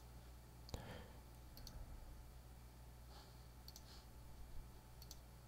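Faint computer mouse clicks, a handful spread a second or two apart, some in quick pairs like double-clicks, over a low steady hum.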